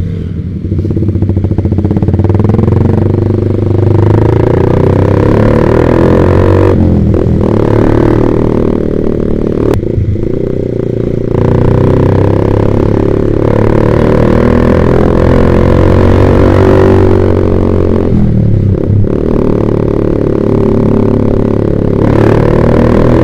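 Yamaha Vixion's single-cylinder four-stroke engine through a Proliner TR1 R aftermarket exhaust, pulling under way. The engine note climbs and falls back sharply about three times as gears are shifted.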